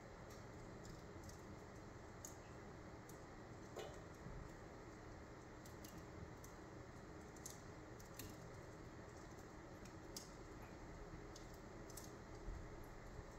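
Small wood fire crackling faintly in a fireplace: scattered, irregular pops and ticks over a steady low hiss, with one slightly louder pop about four seconds in.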